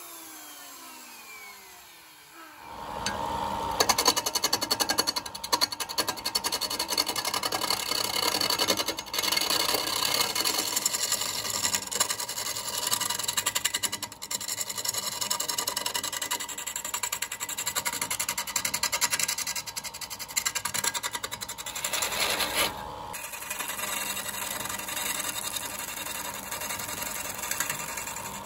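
A motor winding down with a falling whine, then a wood lathe starting up about two and a half seconds in. A hand-held scraping tool then cuts into the spinning bamboo section, a continuous rough scraping with fine rapid chatter.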